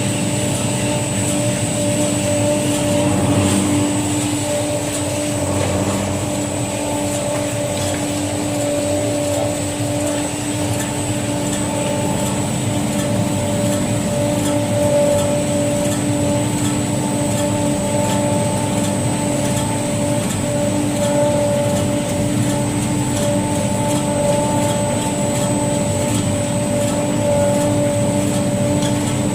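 Automatic conveyor-belt meat strip cutting machine running: a steady motor hum with a constant high whine over the running noise.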